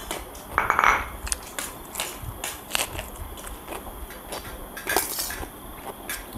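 Scattered light clinks and scrapes of tableware being handled while eating: stainless-steel plates, cups and utensils, with a louder, briefly ringing clatter a little under a second in.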